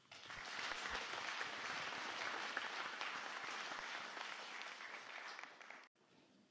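Audience applauding, a dense steady clapping that cuts off abruptly near the end.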